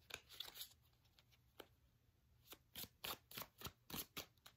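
Tarot cards being shuffled by hand: faint, irregular flicks and snaps of card edges, coming quicker in the second half.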